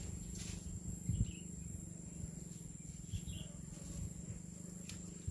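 Outdoor ambience: a steady high-pitched insect buzz, with a few faint short bird chirps and a couple of soft knocks.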